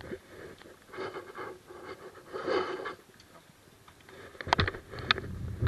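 Bicycle ride on a paved path: soft rolling and rustling noise, then a quick run of sharp rattling clicks and knocks a little past halfway.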